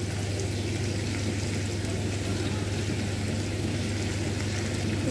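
Wet chopped cabbage and spinach sizzling steadily in a hot non-stick wok, over a steady low hum.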